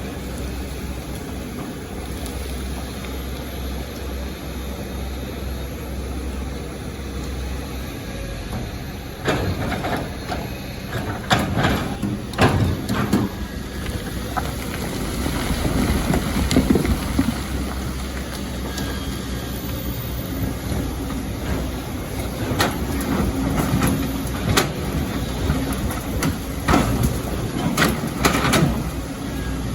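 Excavator's diesel engine running steadily. From about nine seconds in, bursts of knocking and clattering come and go, with a heavier rumble, as the machine digs and rocks and sand fall.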